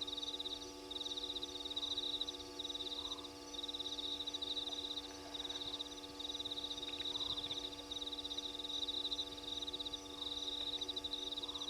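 Cricket-type insects trilling at night: a high, rapidly pulsed trill that comes in bouts of about a second each with short breaks, over a steady electrical hum.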